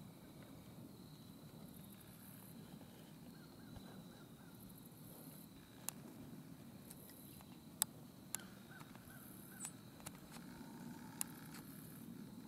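Quiet autumn woodland ambience: a steady low background hum, faint distant bird calls now and then, and a few sharp clicks, the loudest about eight seconds in.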